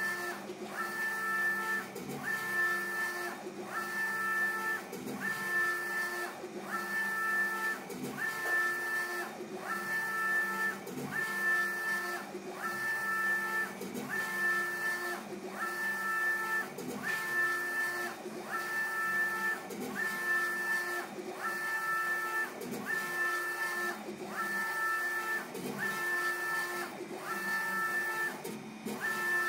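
UV flatbed inkjet printer printing, its print-head carriage shuttling back and forth across the bed. Each pass carries a steady two-note motor whine that breaks off briefly at the turn, about once a second.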